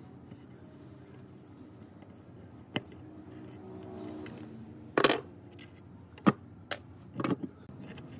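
Metal parts clinking and knocking as they are handled, in a handful of separate sharp strikes with a loud cluster about halfway through, over a low steady background.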